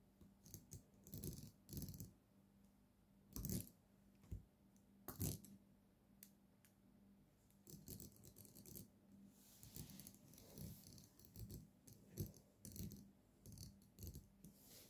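Faint scratching, tapping and rustling of a fountain pen on the paper of a spiral notebook, in irregular short clusters, with two sharper knocks a few seconds in. A faint steady hum runs underneath.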